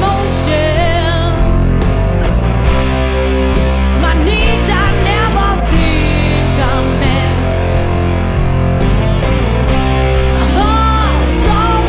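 Rock song with distorted electric guitars and drums, and a vocal line whose pitch wavers over the band.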